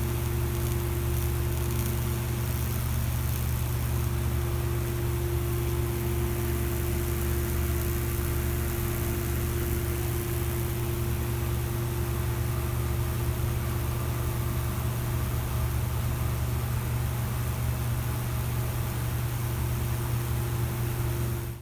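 Microwave oven transformer running at high voltage for Lichtenberg fractal wood burning: a steady, unbroken electrical hum under a continuous hissing sizzle as the current burns across the wood.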